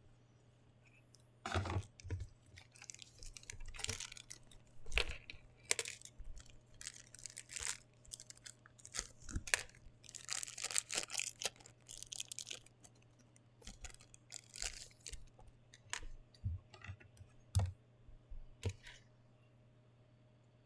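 Small plastic figure parts and packaging being handled up close: irregular sharp clicks and short crinkly, tearing rustles. They begin about a second and a half in and stop shortly before the end.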